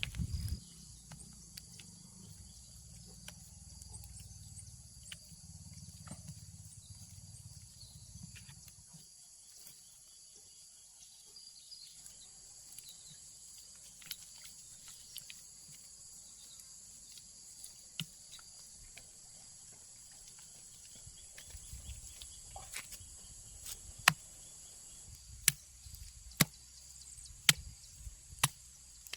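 Steady high-pitched insect shrilling, with a run of sharp knocks about once a second in the last several seconds, like chopping.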